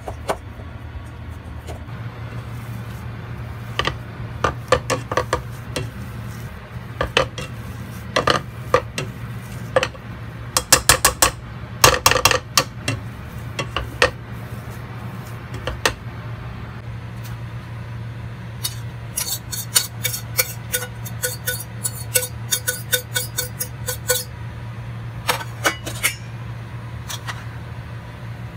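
A metal potato masher and fork clinking and scraping against a stainless steel pot as potato and shredded chicken are mashed and mixed, in irregular runs of sharp clinks with a quick rattle of taps near the middle. A low steady hum runs underneath.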